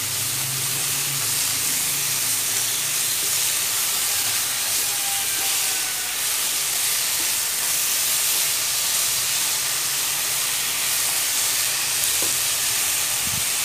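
Frog pieces sizzling in hot oil in a nonstick frying pan as they are stir-fried with chopsticks, a steady hiss.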